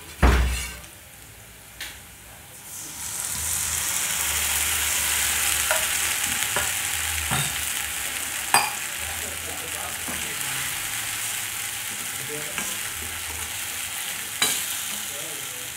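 Cornflour-thickened gravy slurry going into a hot steel wok of stir-fried vegetables: after a loud clank near the start, the wok starts sizzling steadily about three seconds in. A steel ladle stirs, with sharp clinks against the wok every second or two.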